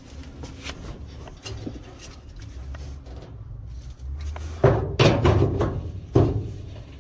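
Knocking and clattering of dryer parts being handled during a repair, with light clicks throughout and three louder thuds in the second half.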